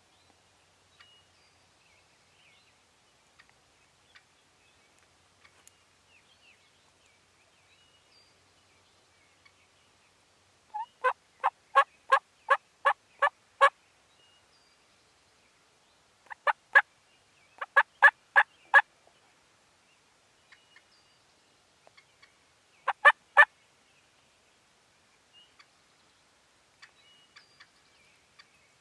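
Wild turkey yelping, loud and close: a run of about eight evenly spaced yelps, two shorter runs a few seconds later, then three more, with quiet between.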